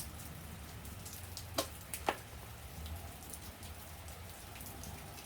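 Steady rain falling, heard as an even hiss, with about three sharp clicks around one and a half to two seconds in.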